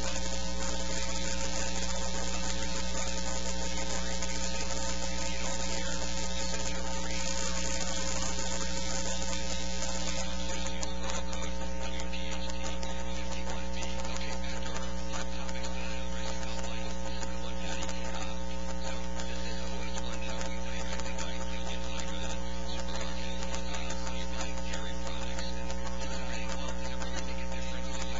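Steady electrical mains hum with a buzzing stack of overtones over a background hiss, unchanging in level.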